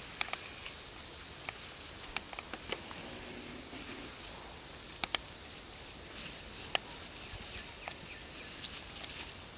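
Macaques moving through grass and leaf litter: scattered sharp clicks and snaps over a faint steady outdoor hiss, the loudest snaps about five seconds and just under seven seconds in.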